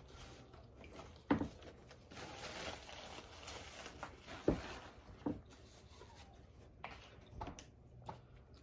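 Quiet mealtime sounds at a table: a few soft, separate clicks and taps of utensils on plates, with a faint stretch of rustling between them.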